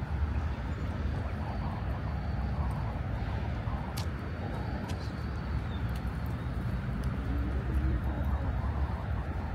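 City street ambience: a steady low rumble of traffic, with two sharp clicks about four and five seconds in.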